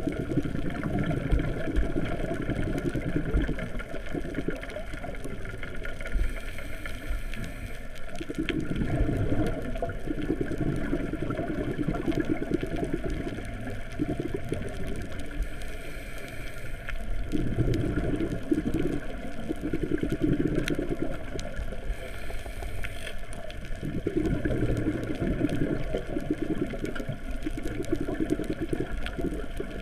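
Scuba diver's regulator breathing, heard underwater: a burst of exhaled bubbles every seven or eight seconds over a steady muffled rumble.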